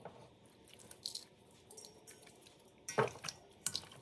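Hands rubbing salt into raw carp pieces in a stainless steel bowl: soft wet squishing and light slaps of fish flesh, with one louder slap about three seconds in.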